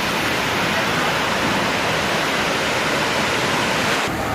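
Steady rushing of water falling at a waterfall, an even hiss that cuts off suddenly about four seconds in.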